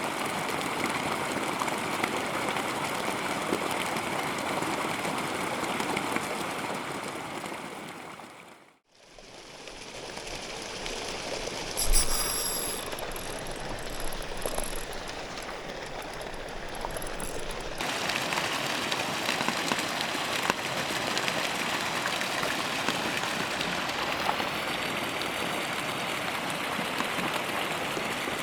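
Steady water noise, a continuous hiss like running water or rain, fading out and back in about nine seconds in, with a single knock about twelve seconds in.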